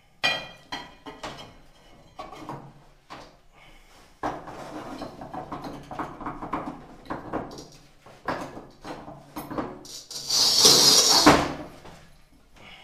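Manual tile cutter (Walmer MGZ 800) in use: knocks and clicks as the tile is set on the bed and the carriage slid along its rails, then, about ten seconds in, a loud scratchy hiss lasting a second and a half as the scoring wheel is drawn across the tile's glaze.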